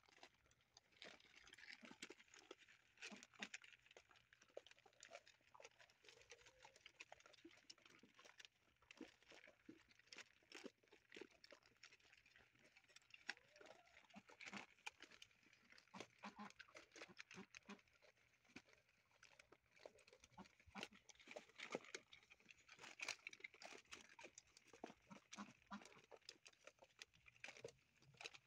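Faint sounds of a litter of XL American Bully puppies eating together from a shallow metal pan: a steady, irregular patter of small clicks and crunches from chewing and from muzzles knocking the pan.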